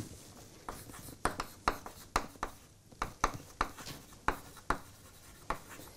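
Chalk writing on a blackboard: a string of short, sharp taps and scratches, about two a second, as letters are chalked onto the board.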